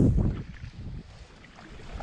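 Wind buffeting the microphone, strongest in the first half second, then a fainter rustle of dry reeds being pushed aside in a reed bed.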